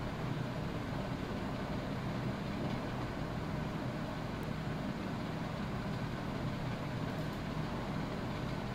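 Steady background noise: a low hum under an even hiss, unchanging throughout, with no speech.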